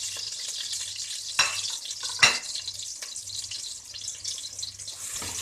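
Thinly sliced onions frying in hot ghee with a steady sizzle, being fried crisp rather than sautéed. Two sharp knocks come through about a second and a half in and just over two seconds in, the second one louder.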